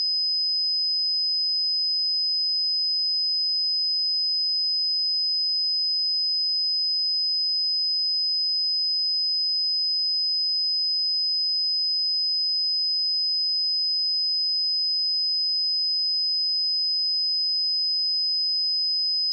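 A steady, unbroken 5034 Hz sine-wave test tone: a single high-pitched pure note held at constant level.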